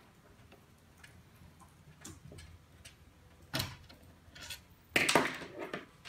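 Hand tools working a small machine bolt loose on a wooden table: faint clicks of a hex key and pliers, a sharp tap about three and a half seconds in, then a louder clatter lasting most of a second about five seconds in as the freed bolt, nut and pliers are set down on the wood.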